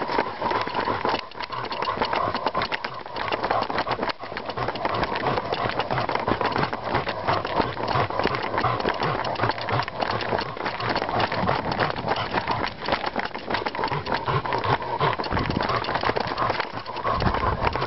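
Running footfalls and rustling on a forest floor, thick with rapid knocks and crackles from a jostled handheld camera, with a brief low rumble near the end.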